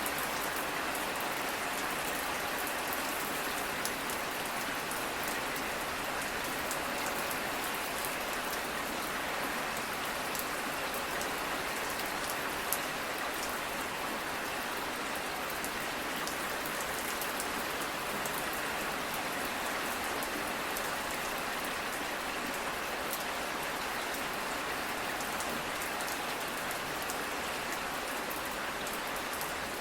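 Steady rain falling, a constant hiss with many fine drop patters.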